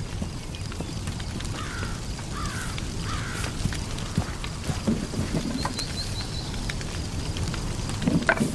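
Outdoor ambience: a steady low rumble, with a bird calling three short falling notes and then giving a brief high twitter. A louder noise comes near the end.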